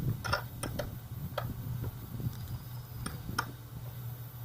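Socket ratchet giving a handful of sharp, irregularly spaced clicks while working loose the front-fork axle pinch bolts, which are tight from the factory. The clicks are bunched in the first second and a half and come twice more a little past the three-second mark.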